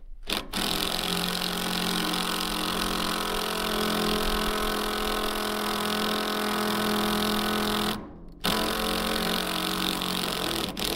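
Cordless impact driver running hard as it struggles to drive a screw into a solid oak purlin. It runs for about seven seconds, stops for half a second, then runs again for about two and a half seconds.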